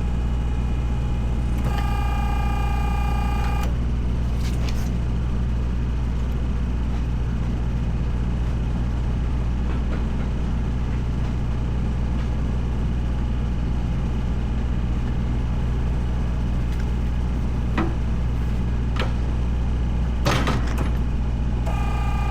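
A vehicle engine running steadily with a deep hum. A whining tone cuts in and out twice, and there are a few metallic knocks near the end.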